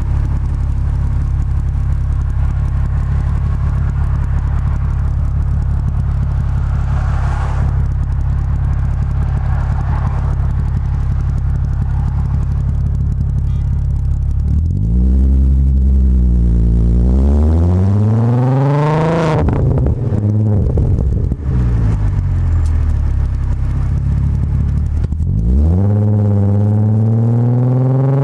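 Volkswagen VR6 engine's exhaust, a steady low drone at cruise for the first half, then rising in pitch as the car accelerates through a gear, dropping sharply at a gear change, and pulling up again near the end.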